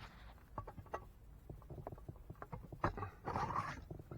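Small clicks, taps and scrapes of an old Ensign medium-format camera being handled as its back is unlatched and slid off, with a louder rustling scrape a little past three seconds in.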